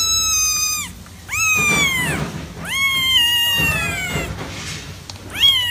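Young kitten meowing repeatedly: a string of high cries about a second long each, falling in pitch at their ends, the last one starting near the end.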